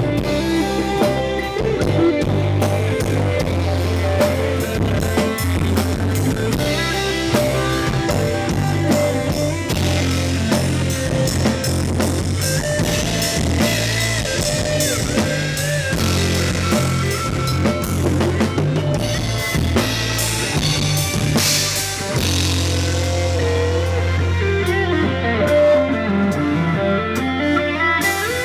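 Live band playing an instrumental break: drum kit, steady bass and a lead melody, which bends in pitch near the end.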